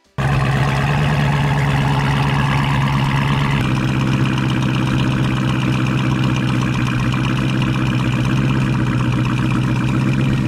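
Dodge Challenger SRT 392's 6.4-litre Hemi V8 running at steady revs, starting suddenly, with a slight change in its tone a few seconds in.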